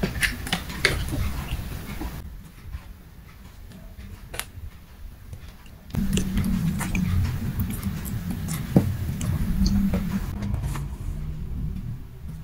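Scattered light taps and clicks of a cat batting a small toy on a tile floor, over a low rumble.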